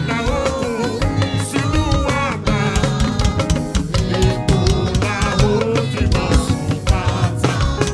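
Upbeat praise-and-worship music with singing over a steady drum beat.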